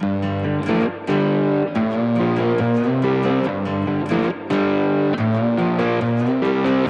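Background music led by guitar, with steady chords changing in a repeating pattern.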